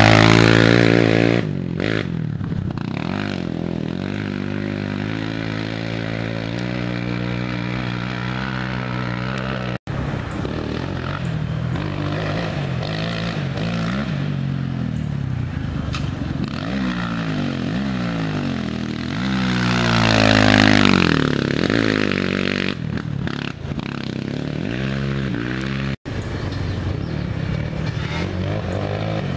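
Youth racing ATV engines revving up and down through the gears as quads pass, loudest as one goes by close near the start and again about twenty seconds in. The sound cuts out for an instant twice.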